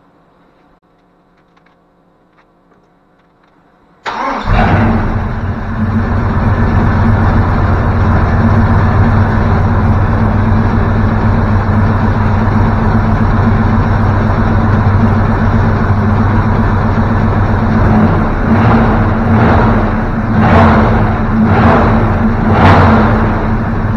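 Vortec 454 big-block V8 starting up suddenly about four seconds in and running loud and steady, with about five quick throttle revs near the end.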